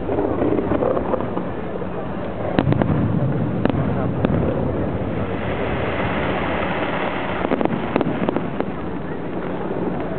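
Aerial fireworks shells bursting in a scattering of sharp bangs, clustered a few seconds in and again near eight seconds, over a steady background of crowd chatter.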